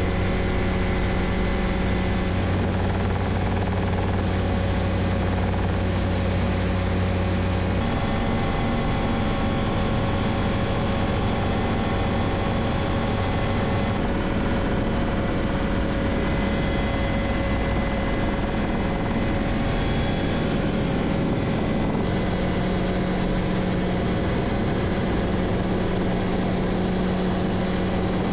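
Light helicopter's engine and rotor running steadily, heard from inside the cockpit. The low note changes about eight seconds in and returns to its first pitch near twenty-two seconds.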